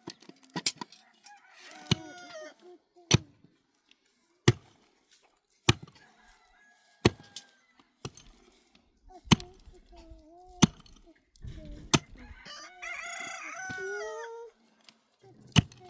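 Sharp knocks repeating about every second and a quarter, and a rooster crowing near the end.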